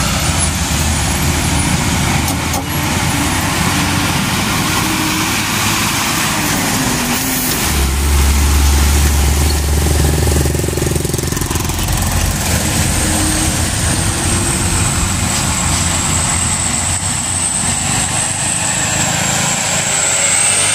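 Hino TI six-wheel dump truck's turbocharged diesel engine pulling uphill as it approaches and passes. The deep rumble is loudest about eight to twelve seconds in, as it goes by. A thin, steady high whine runs through the second half.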